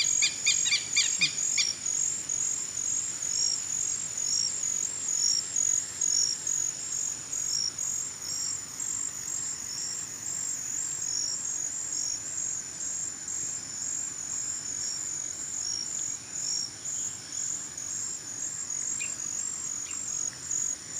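Insects chirping steadily in a high, evenly pulsed rhythm, with a bird giving a quick series of repeated notes in the first couple of seconds.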